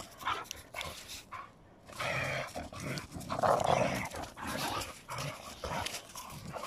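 Two dogs play-fighting, with short bursts of growling; the loudest come about two and three and a half seconds in.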